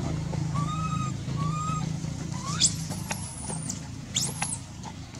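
Infant long-tailed macaque calling in distress: two short whimpering coos, then two shrill cries that sweep sharply upward, the second about four seconds in as its mother holds it by the tail. A low steady hum runs underneath and fades.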